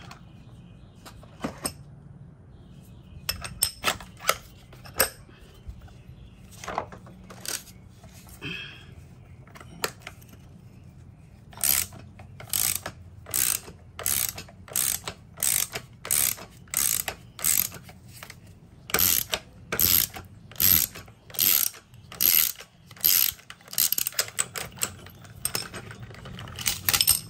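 Ratchet wrench clicking in short back-and-forth strokes, undoing the nut on a shock absorber's piston rod while a 6 mm hex holds the rod. Scattered tool clinks come first, then a steady run of about two strokes a second from about halfway in.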